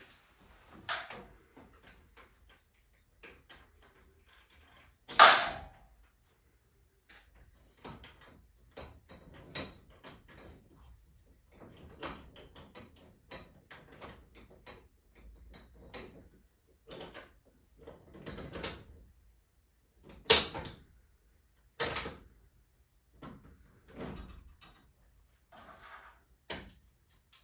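Hand work on garage door torsion spring hardware: irregular knocks and clicks of tools and fittings, with three much louder sharp knocks, about five seconds in and twice near 20 and 22 seconds.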